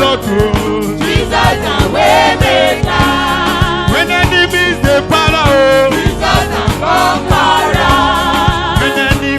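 Church choir singing a gospel song, voices wavering with vibrato over a band with a steady drum beat.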